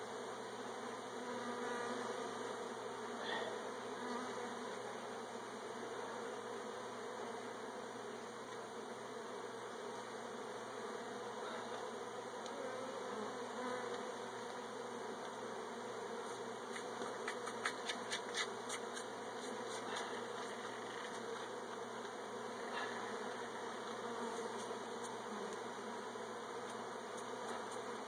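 Honey bees buzzing steadily around opened hive comb, with a quick run of sharp clicks about two-thirds of the way through.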